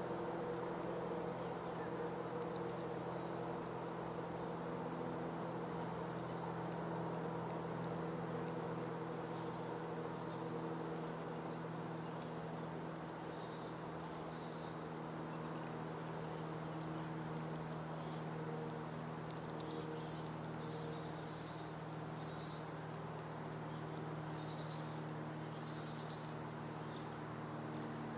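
Insect chorus outdoors: a continuous high trilling with a faint pulsing beneath it, over a steady low hum.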